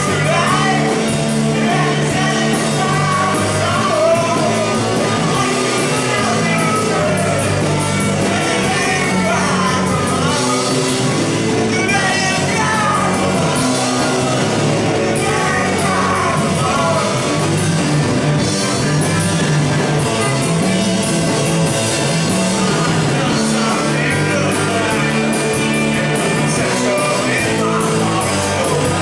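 Live rock band playing loud: electric guitar, bass guitar and drums, with a singing voice in the mix.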